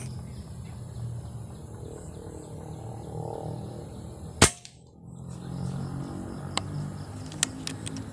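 An air rifle firing a single shot with a molded slug: one sharp crack about four and a half seconds in, followed a couple of seconds later by a few light clicks.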